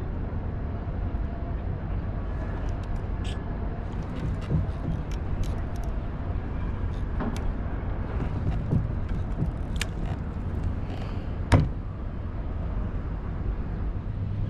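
Steady low rumble of wind and water around a fishing kayak on open sea, with scattered light clicks of rod and tackle and one sharp knock about three-quarters of the way through.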